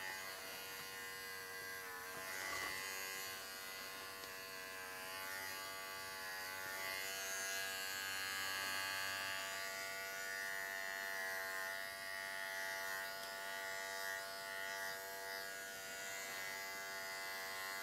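Wahl Bravura cordless pet clipper buzzing steadily as it shears a Maltese's body coat short.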